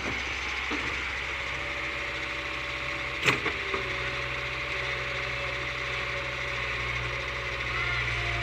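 Backhoe loader's diesel engine running steadily at low revs, with a single sharp knock a little over three seconds in, followed by two smaller ones.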